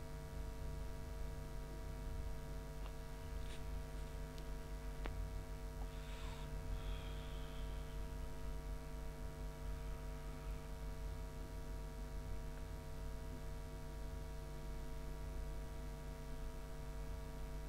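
Steady electrical mains hum on the recording, with a few faint clicks a few seconds in and a brief soft noise around six seconds in.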